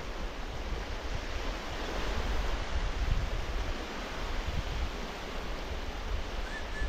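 Wind buffeting the microphone with a low, uneven rumble, over a steady rushing hiss of small waves lapping at the reservoir shore.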